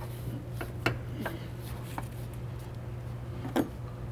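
A few light metallic clicks and a sharper knock near the end as a pry bar levers a driveshaft loose from its flange, over a steady low hum.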